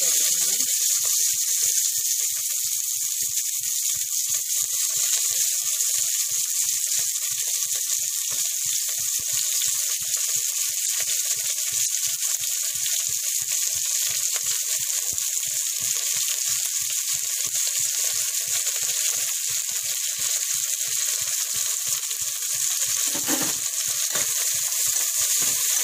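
Sliced onions frying in hot ghee and oil in a pressure cooker pan. The sizzle starts suddenly as they go in and runs on as a steady hiss.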